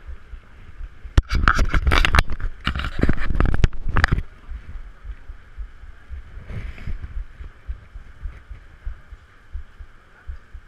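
Wind rumbling and buffeting on the microphone on an open ship deck. About a second in comes a loud, crackling rush of noise that lasts about three seconds, and a fainter one follows a few seconds later.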